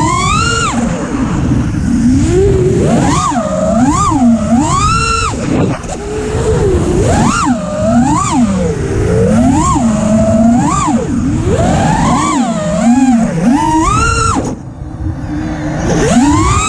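FPV freestyle quadcopter's brushless motors and propellers whining, the pitch climbing and falling again and again with quick throttle punches. Near the end the throttle drops off for about a second, then punches sharply back up.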